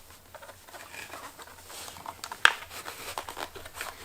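Plastic ATV headlight housing being handled while tight mounting clips are pressed in by hand: scattered small plastic clicks and rustles, with one sharp click about two and a half seconds in.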